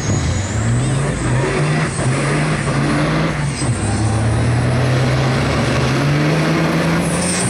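Two diesel semi-trucks drag racing at full throttle, their engines running hard as they accelerate. The engine note climbs and drops back several times as they change gear.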